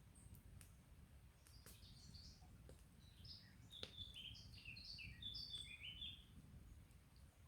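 Faint campfire crackling with a few sharp pops over a low steady rumble; a songbird sings a quick run of chirping notes, stepping up and down, from about three seconds in to about six.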